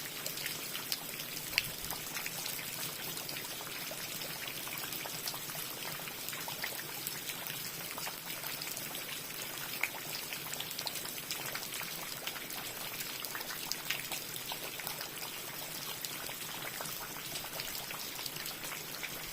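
Steady rain, an even hiss of water with many small, irregular drop ticks.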